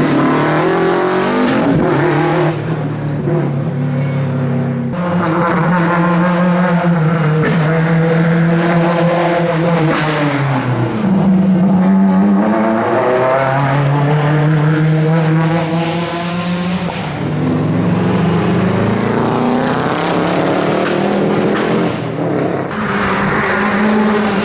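Classic rally cars' engines revving hard, the pitch climbing and falling again and again as they slide past, with brief lifts off the throttle every few seconds.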